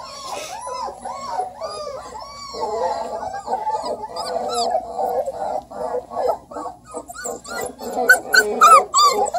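Three-week-old Redbone Coonhound puppies whining and crying in a quick string of short rising-and-falling cries, complaining at being penned apart. Louder, higher yelps break in near the end.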